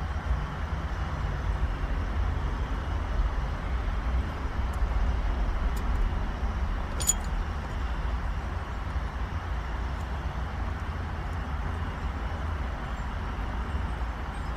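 Steady low background rumble, with a few faint clicks of small parts being handled during a short shifter install and one sharper click about seven seconds in.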